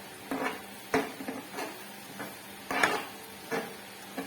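Dishes, utensils and cookware clinking and knocking together as tableware for a Korean grill meal is handled: a string of short clinks, about two a second, the loudest a little before three seconds in.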